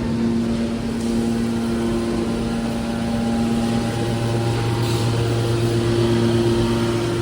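Scrap metal baler press running, a steady hum of its hydraulic drive with several held tones and no break.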